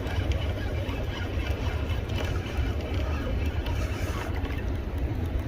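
Steady rush of a river running high, with wind buffeting the microphone as a low rumble.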